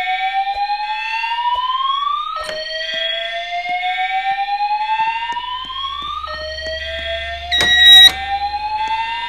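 School fire alarm voice-evacuation system sounding its whoop alert tone: a rising sweep that starts over about every four seconds. Near the end a second alarm sounds one loud, steady blast of about half a second, the loudest sound.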